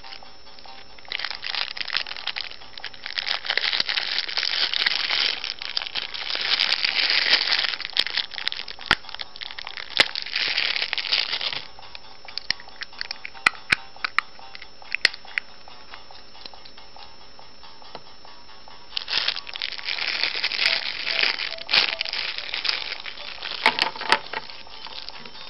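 Clear plastic wrapper crinkling as it is torn and unwrapped by hand from a toy, in two long stretches with scattered small clicks and taps of the plastic egg shell between them.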